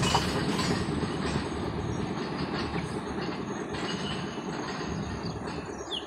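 A steady low rumble that slowly fades, opening with a sharp click.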